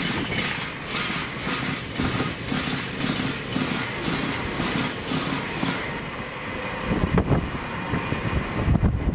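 Passenger train passing at speed on the main line, its wheels clattering over the rails in an even beat of about two knocks a second over a steady rumble.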